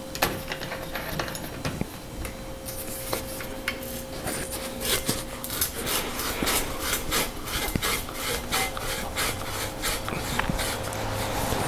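Seat post being twisted back and forth and drawn out of a steel bicycle frame's seat tube, metal rubbing on metal in a quick run of short scraping strokes; the joint has had a shot of WD-40 and the post is coming free.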